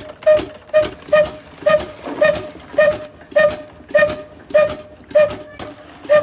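Old stationary 'black engine' with a heavy spoked flywheel running slowly, giving a sharp, ringing metallic beat about twice a second. The beats come gradually further apart as it slows a little.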